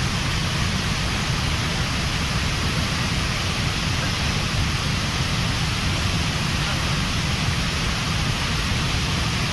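Water discharging through a dam's spillway gates and crashing down the spillway: a steady rushing of falling water with a deep rumble underneath.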